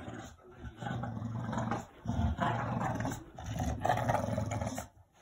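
Dog growling in play, in three rough bouts about a second or more each.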